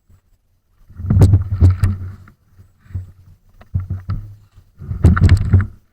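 Microphone buffeting and rustle: three bursts of low rumble with crackly clicks, about a second in, around the middle, and near the end.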